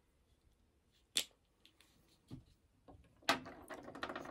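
Handling of metal air-shotgun shell casings and plastic wads in a plastic loading block: a few separate sharp clicks, then a louder click about three seconds in followed by a second of quick clattering.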